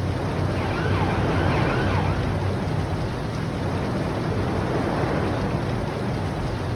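Film sound effects of a volcanic eruption: a steady deep rumble under a rushing noise like surf, with a few faint wavering cries rising and falling in the first couple of seconds.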